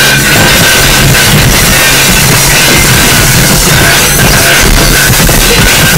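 Harsh power-electronics noise music: a loud, steady wall of distorted noise with a pulsing low end and a thin high whine that comes and goes.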